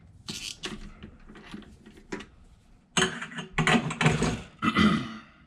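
Mechanical clicking and rasping in short bursts, like a ratchet being worked, louder in a run of four bursts from about three seconds in.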